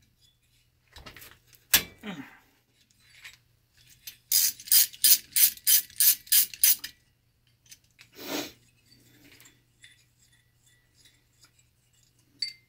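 Socket ratchet clicking in a quick run of about a dozen strokes, about four a second, as it turns the head nuts on a Kawasaki KV75's finned two-stroke cylinder head. A few single clicks come before the run, and a dull knock follows it.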